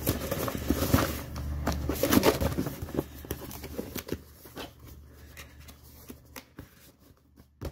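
A cardboard mailer box being handled and its lid closed and pressed down: rustling, scrapes and light taps that thin out to a few sparse clicks, with a sharper click near the end.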